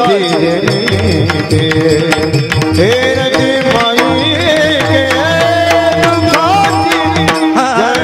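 Varkari devotional kirtan music: a two-headed barrel drum (mridang) played in a steady rhythm, with small hand cymbals (tal) struck over it and a long sustained melodic line above.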